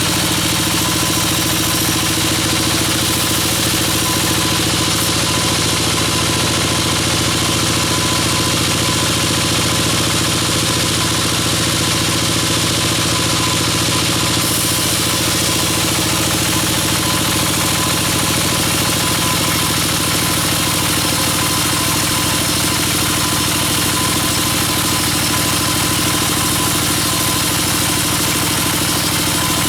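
Sawmill machinery running steadily: an unchanging engine-like drone of several steady tones, with no cut starting or stopping.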